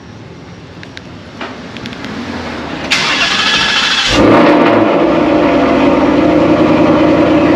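A Ford Mustang being started: the starter cranks for about a second, the engine catches about four seconds in and settles into a loud, steady idle.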